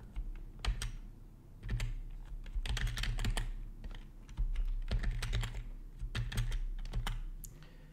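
Typing on a computer keyboard: irregular key clicks in several short runs with brief pauses between them.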